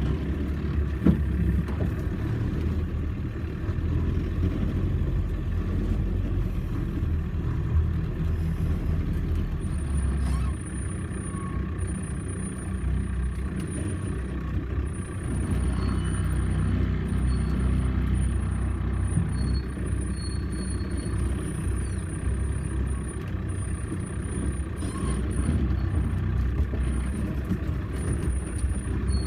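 Off-road 4x4 vehicle's engine running steadily at low revs, with small rises and falls in load. A thin, faint high whine comes and goes from about ten seconds in.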